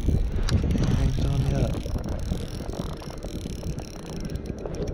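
Wind buffeting the microphone, a steady low rumble, with a brief click about half a second in.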